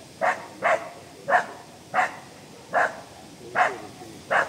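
A dog barking repeatedly: about seven short, sharp barks, a little under a second apart.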